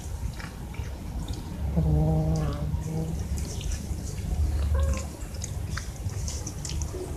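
Cats meowing: a low, drawn-out call about two seconds in and a shorter call near the five-second mark, over scattered small clicks and a low rumble.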